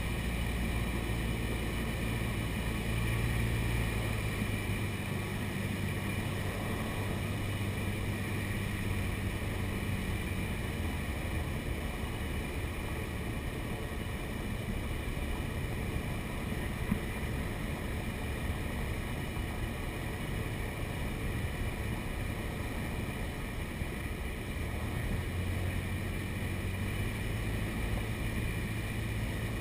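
A light single-engine airplane's piston engine and propeller droning steadily, heard from inside the cabin along with the rush of air over the airframe. The deepest part of the engine note fades about five seconds in and returns near the end.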